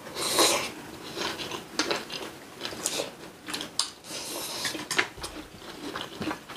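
Eating sounds: chewing and biting food, with many sharp clicks of cutlery against dishes and a louder rustling burst just after the start.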